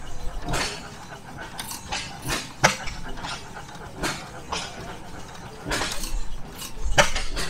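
Vertical stationary gas engine running, its exhaust firing in sharp pops at uneven intervals.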